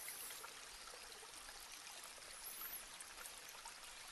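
Faint steady hiss of background noise, with a few faint small ticks and rustles from handling at the tying vise.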